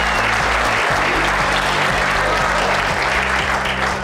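Audience applauding steadily over background music, the clapping thinning out near the end.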